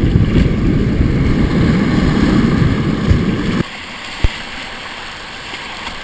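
River rapids rushing and splashing around a kayak, with wind buffeting the boat-mounted camera's microphone in a heavy low rumble. Three and a half seconds in, the sound cuts abruptly to a quieter, steady rush of whitewater, and a single sharp knock follows a moment later.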